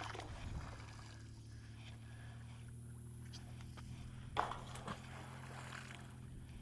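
A steady low motor hum, with one sharp knock about four and a half seconds in; the hum stops near the end.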